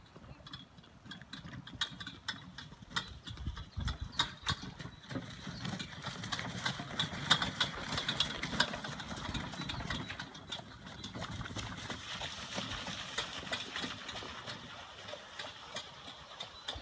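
Horse trotting in harness, its hoofbeats a steady run of clops on wet, snow-patched sand, with the rolling rumble of the two-wheeled cart behind it. Both grow louder in the middle as the horse and cart pass close by, then fade.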